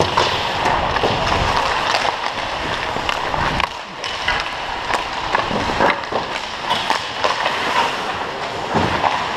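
Hockey skate blades scraping and carving on rink ice as the wearer skates, with short sharp clacks of hockey sticks and pucks now and then.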